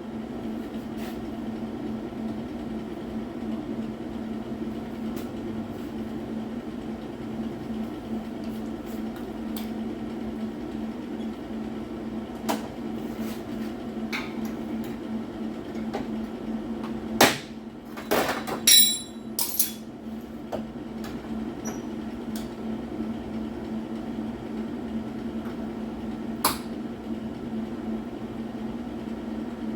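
Scattered sharp metal knocks and taps over a steady low hum, with a louder cluster of ringing metallic clanks a little past halfway.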